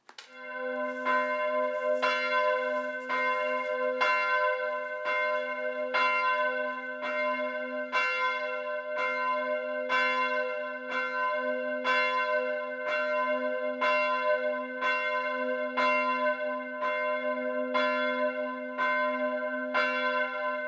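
A single church bell tolling slowly, about one stroke a second, each stroke ringing on into the next. It is a funeral toll.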